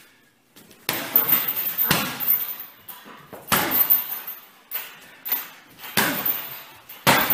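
Kicks landing on a hanging heavy bag: a run of sharp smacks, about five hard hits and a few lighter ones, each trailing off in a short rattle.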